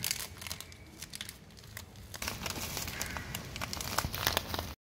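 Crinkling and crackling of a plastic snack packet being handled and torn open by hand, busier and louder in the second half.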